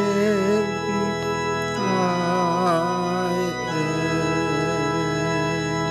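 Church organ holding hymn chords that change about two and four seconds in, with a man's voice singing long, wavering held notes over them.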